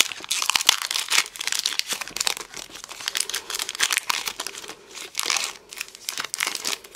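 Foil wrapper of a Magic: The Gathering booster pack crinkling and tearing as it is opened by hand: a dense run of crackles that eases off near the end.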